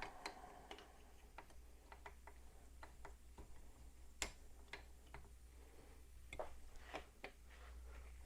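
Faint, irregular clicks and taps of small parts being handled during assembly, over a low steady hum.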